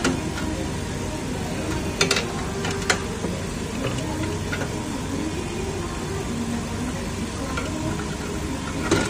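Steady background hiss broken by a few sharp metallic clicks and taps of a screwdriver and hardware against a sheet-metal cabinet: two about two seconds in, one near three seconds and one near the end.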